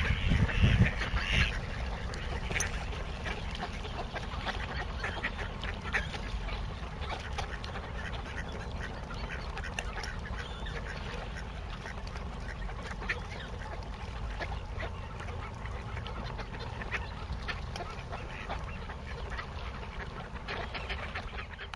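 A flock of mallard ducks quacking on the water, with scattered calls from the wider waterfowl flock. The calling is densest in the first second or so, then goes on as short, scattered calls over a steady low rumble.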